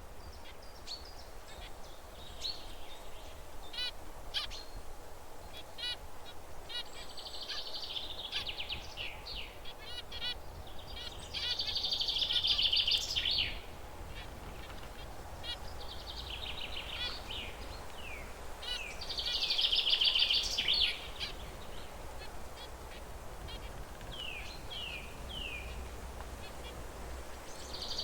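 Zebra finches calling with short, high beeping chirps throughout, breaking into louder, buzzy song bursts about twelve and twenty seconds in and again at the very end.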